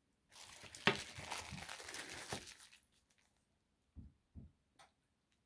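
Plastic packing wrap crinkling and tearing for about two and a half seconds as a crystal is unwrapped by hand, followed by two soft knocks.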